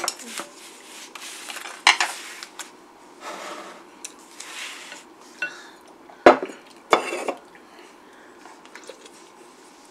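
Spoons and chopsticks clinking and scraping against ceramic stew bowls during a meal, with scattered sharp clinks; the loudest come about six to seven seconds in.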